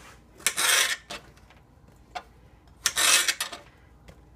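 Kitchen knife slicing through zucchini onto a plastic cutting board: two rasping cuts, one about half a second in and another near three seconds in, with a light click between them.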